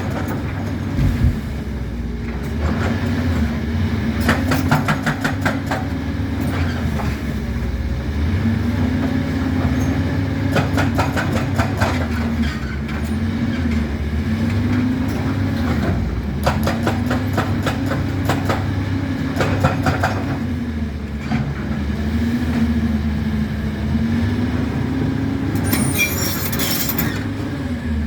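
Doosan DX225 excavator's diesel engine working under load, its pitch dipping and recovering every few seconds as the hydraulics are worked. Several stretches of rapid clattering come and go, and a brief high squeal sounds near the end.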